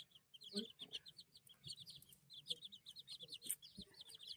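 Baby chicks peeping: a fast, overlapping stream of short, high chirps, each falling in pitch, several a second.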